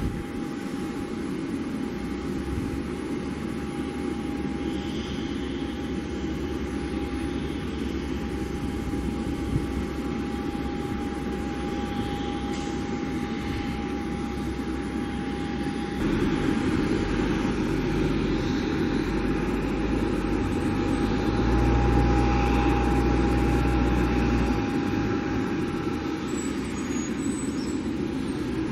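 Small Cessna business jet's turbofan engines running steadily at a distance, a constant high whine over a rushing noise. A low rumble swells about two-thirds of the way through.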